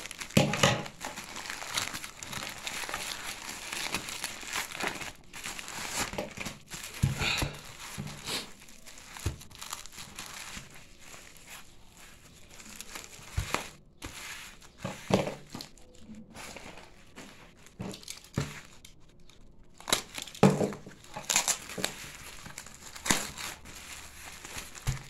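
A plastic courier mailer and its white inner wrapping being cut open and unwrapped by hand. The sound is irregular crinkling and rustling with sharp tearing sounds, quieter for a stretch in the middle.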